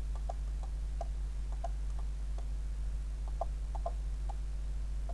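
Computer mouse clicking: about a dozen faint, short clicks at irregular spacing over a steady low electrical hum.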